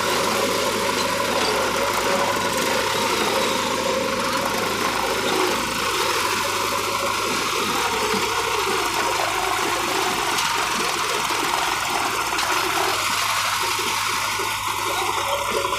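New Holland 3630 tractor's diesel engine running steadily as the tractor tries to drive out of a soil trench.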